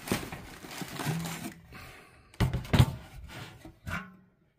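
A large metal barrel-shaped tin being handled: rustling, then a few knocks about two and a half seconds in.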